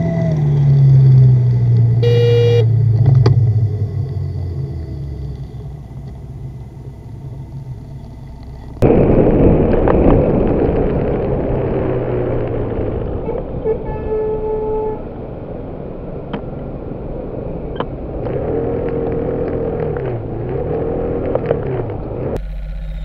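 Road traffic recorded from a vehicle-mounted camera: engine noise that falls in pitch over the first few seconds, with a short horn toot about two seconds in. About nine seconds in the sound jumps to louder road and engine noise, with a few brief horn-like tones later on.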